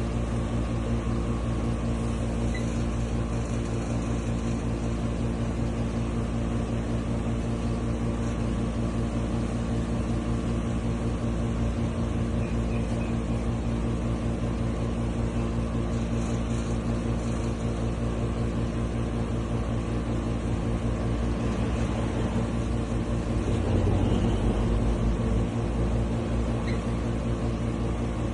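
Steady mechanical hum with a low drone, unchanging throughout and briefly a little louder about three-quarters of the way through.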